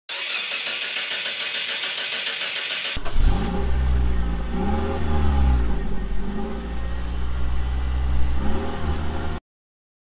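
A hissing noise for about three seconds, then a car engine revving up and down several times as an intro sound effect, cutting off abruptly near the end.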